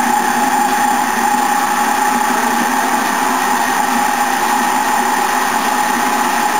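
Electric food processor motor running steadily with a constant whine, chopping a bowlful of tomatoes.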